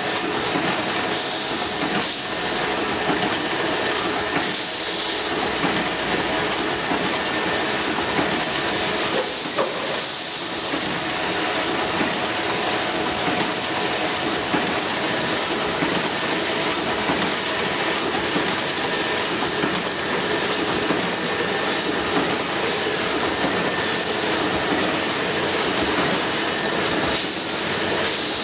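Semi-automatic aerosol can production line running: continuous, dense clatter of the machinery over a steady hum, with a few brief louder swells.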